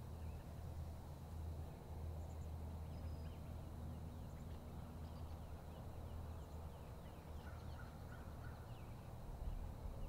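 Faint outdoor pasture ambience: a steady low rumble with faint, scattered short bird calls.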